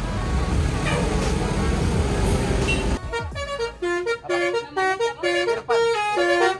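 Engine and traffic noise for about three seconds, then a multi-tone telolet bus horn playing a quick melody of about ten stepping notes, which cuts off abruptly at the end.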